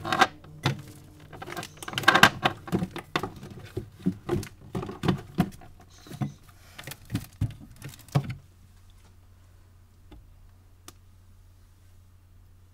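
Food and containers in an open refrigerator being rummaged through: a quick, uneven run of clinks, rattles and rustles that stops after about eight seconds. A faint low hum follows, with one more small click.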